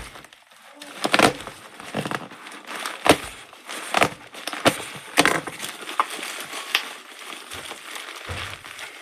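Packaging crinkling and rustling as it is pulled open by hand, with irregular sharp crackles about once a second.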